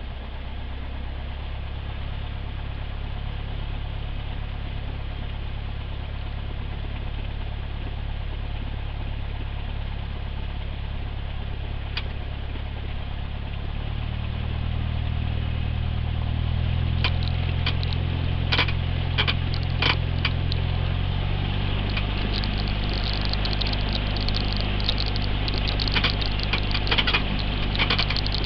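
Cessna 172's piston engine idling steadily, heard through the cabin. About halfway through it is throttled up in two steps to a higher, louder pitch, and sharp rattling clicks join it in the second half.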